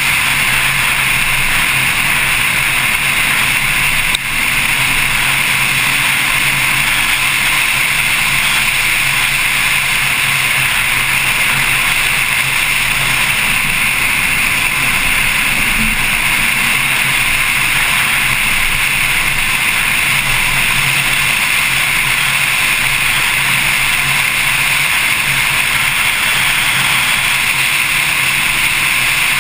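Wind and road noise rushing over a hood-mounted camera on a Porsche Carrera S at track speed, with a steady low engine drone underneath. One short click comes about four seconds in.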